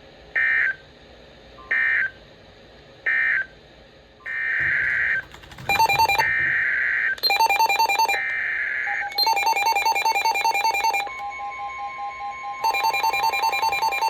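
Emergency Alert System tones. Three short squawking SAME data bursts close the previous alert, followed by the data bursts of a new alert header. From about six seconds in, these overlap a loud, rapidly pulsing two-tone EAS attention signal, and a steady weather-radio alert tone joins near the end.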